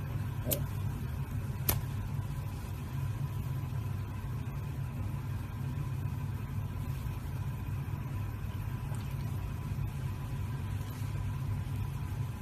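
A steady low hum with a faint, constant high tone, and two light clicks in the first two seconds.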